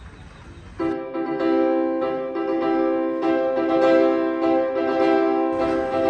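A faint low rumble, then about a second in, keyboard music starts with long held chords that change every second or so.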